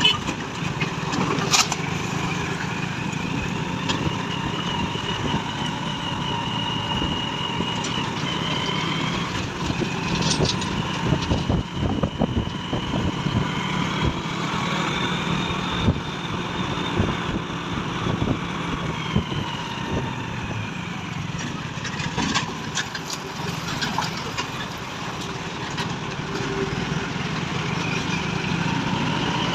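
Truck engine running steadily, with a high whine that slowly rises, holds and falls again over several seconds, and a few sharp clicks.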